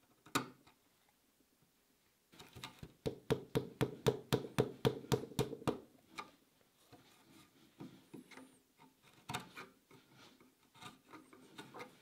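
A narrow wood chisel paring and scraping out a small slotted screw hole in a wooden table rail: a sharp tap just after the start, then a run of quick scraping strokes, about four a second, for some three seconds, followed by lighter, scattered scrapes and taps.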